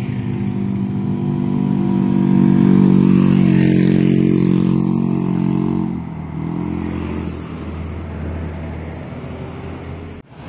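Road traffic: motor vehicle engines passing close by, the loudest swelling up about two to three seconds in and fading away. A lower, steadier engine hum follows from about six seconds in.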